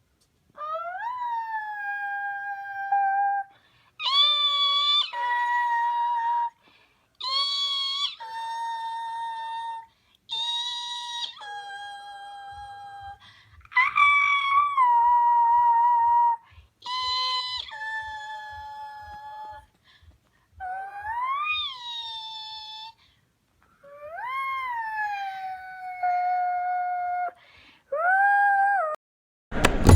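A series of high-pitched, howl-like whining noises made with the voice, each gliding up in pitch and then held steady for a second or two, with short pauses between.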